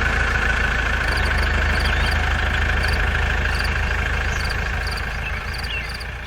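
Engine running steadily at an even speed, fading down near the end.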